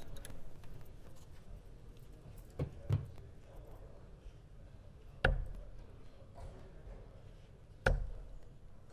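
Steel-tip darts striking a Winmau Blade 6 sisal bristle dartboard: two sharp thuds about five and eight seconds in, with a softer pair of knocks about three seconds in, over a low room hum.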